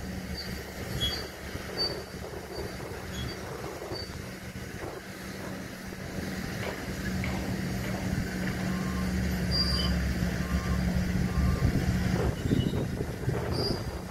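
Heavy diesel machinery running with a steady hum that grows louder toward the end. A warning alarm sounds a short series of double beeps about two-thirds of the way through.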